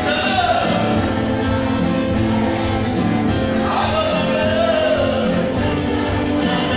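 Arabic Christian hymn sung with instrumental accompaniment, the singing rising and holding long notes over a steady backing.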